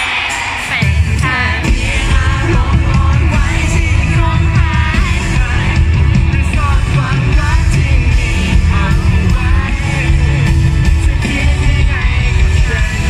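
A band playing live with a singer, heavy bass and drums underneath; the low end of the band comes in under a second in.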